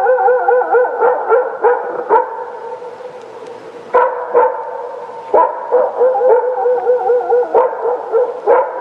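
Wolves howling together in wavering held tones, with short sharp calls breaking in every half second or so in bunches.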